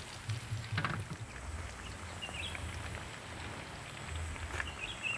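Breaded chicken nuggets deep-frying in hot oil in a wok: a steady sizzle and bubbling, over an uneven low rumble.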